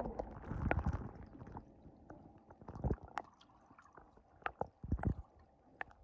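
Pool water heard through a microphone held underwater: a muffled low rumble and gurgle of moving water for the first second or so, then scattered dull knocks and clicks.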